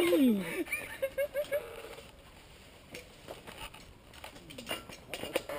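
Mountain bike rolling over a rocky dirt trail: scattered knocks and rattles from the bike over the rough ground, with a brief voice near the start.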